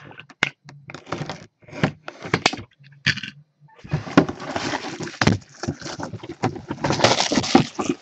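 Plastic shrink wrap being torn and crinkled off a cardboard box: scattered crackles at first, then dense, continuous crinkling from about four seconds in.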